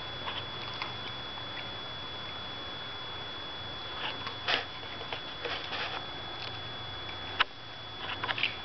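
Small soft clicks and short snuffles against a steady hum with a faint high whine, as a Labrador noses at a concrete floor. One sharper click comes near the end.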